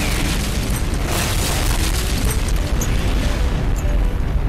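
Explosion sound effect: a loud, continuous blast with a heavy low rumble.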